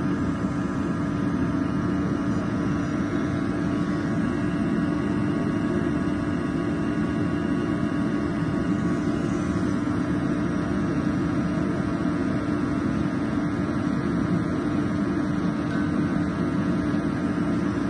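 EOGB Sapphire oil boiler's pressure-jet burner firing steadily at high fire, about 20 bar pump pressure, during combustion setup: a constant fan-and-flame noise with a steady hum and a few high steady tones.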